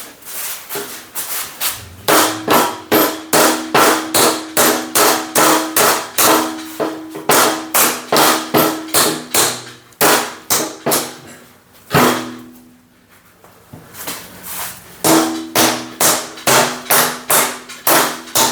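Repeated hammer blows on steel, about three a second, each with a ringing metallic tone, as the lifting magnet is driven down into the hole cut in the steel welding table top. The hammering comes in two spells with a pause of a few seconds between them.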